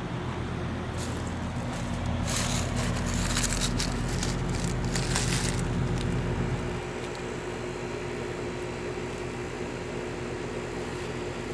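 Goodman 3-ton high-efficiency air conditioner's outdoor unit running, a steady hum from the compressor and condenser fan with several fixed low tones. From about two to six seconds in, a louder crackling, rushing noise rides over it, then it settles back to the even hum.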